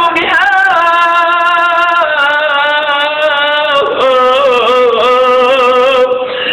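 A man's voice chanting an Arabic dua in a long melismatic line: held, wavering notes that step lower twice, with a brief break near the end.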